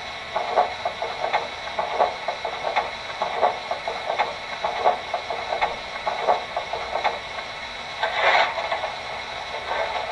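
Sound system of an MTH O-scale model steam locomotive (EST Class 241A) playing its extended startup sequence: a steady steam hiss with regular strokes about three every two seconds. Near the end come louder scraping bursts: the fireman shoveling coal.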